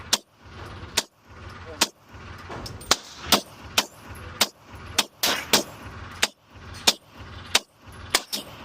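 Glock 19 Gen 4 9mm pistol with an aftermarket P80 Gen 3 threaded barrel fired in a steady string, about fourteen shots roughly one to two a second. The pistol cycles every round without a jam.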